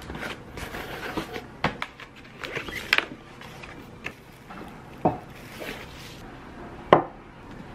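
A cardboard gift box being handled and unpacked on a hard table, with rustling and a few sharp knocks as items are set down. The loudest knock comes near the end.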